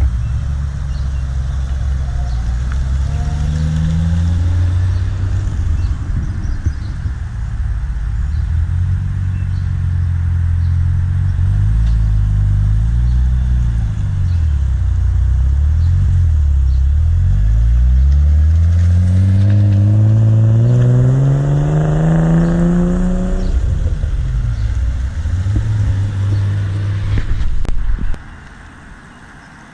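Car engine running with a deep low rumble. Its pitch wavers, then climbs steadily in one long rev before falling back. The sound drops away abruptly near the end.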